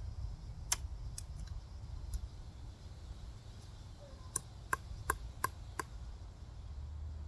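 Sharp plastic clicks and snaps from a remote control's casing being broken apart: a few scattered ones, then a quick run of about five at roughly three a second, over a low rumble.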